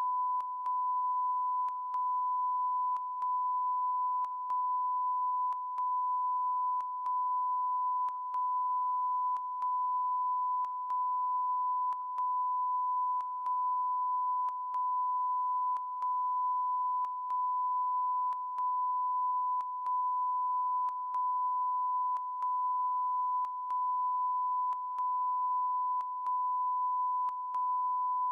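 A steady single-pitch electronic beep, a broadcast test tone, held continuously and broken by a very short dip with a faint click every second or so. It is going out on air in place of the programme sound, a broadcast fault.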